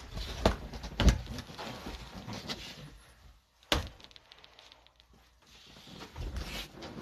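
A cardboard trading-card box handled and set down on a table: a few knocks, the loudest about a second in and another sharp one near four seconds, with soft rustling and sliding of cardboard between.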